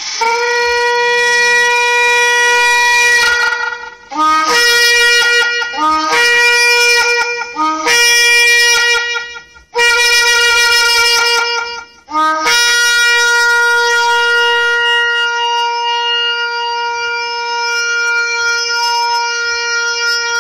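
Ram's-horn shofar blown. It sounds a long blast, then three shorter notes that each start low and step up to the main pitch, then another blast, and from past the middle a very long held blast.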